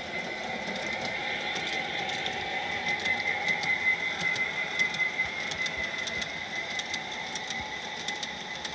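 Large-scale garden-railway model train, an Amtrak locomotive with passenger cars, rolling past. The locomotive's electric motor and gears give a steady whine, with quick light clicks of wheels over rail joints and turnouts. It is loudest about halfway through as the locomotive passes closest.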